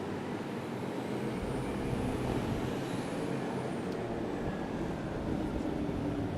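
City street traffic: a steady rumble of passing vehicles that gets heavier about a second in, with a faint high whistle rising and falling in the middle.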